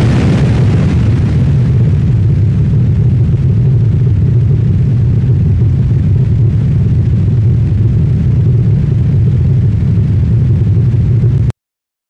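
Explosion sound effect's sustained low rumble, loud and steady, cutting off suddenly near the end.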